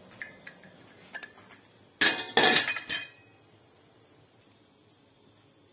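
Light clinks as apple and pear slices are tipped from a colander into a steel pot. About two seconds in comes a loud clatter of kitchenware lasting about a second.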